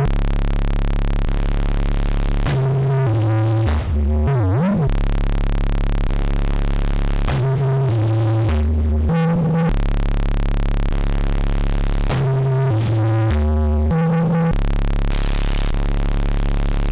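Eurorack modular synthesizer driven by a dual step sequencer, playing runs of stepped bass notes that alternate with stretches of a held low drone. About four seconds in, one tone swoops down and back up, and a hiss rises briefly near the end.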